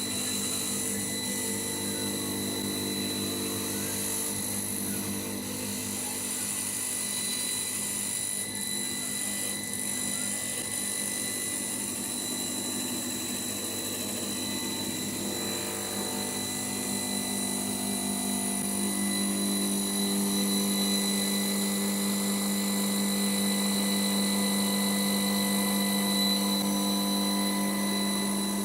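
EagleTec auto feed CNC wood turning lathe running, a steady machine hum with high, constant electric whines. The lower tones change about halfway through and again a few seconds later, when it gets slightly louder.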